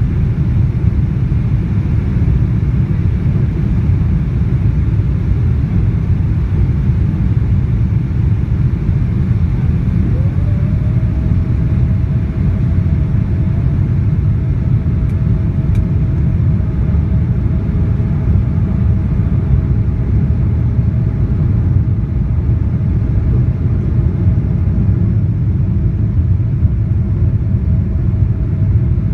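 Boeing 777-200ER cabin noise heard from a window seat on approach with the flaps extended: a loud, steady rumble of engines and airflow. About ten seconds in, a whine comes in with a slight rise and then holds.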